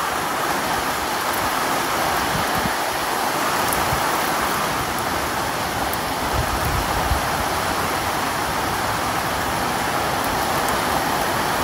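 Heavy hurricane rain and wind making a steady, even rushing hiss, with a few brief low rumbles about halfway through.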